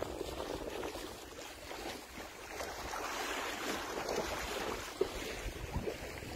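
Light bura wind buffeting the microphone over the sea lapping at the waterfront, with one short click about five seconds in.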